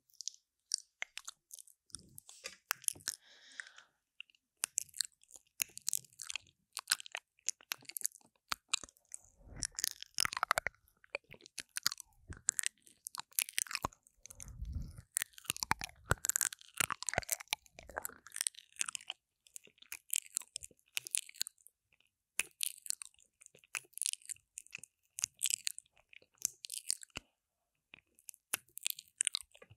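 Wet mouth sounds on a binaural microphone's silicone ear: fast lip smacks, tongue clicks and sucking, very close on the microphone. There are a couple of brief low rumbles near the middle.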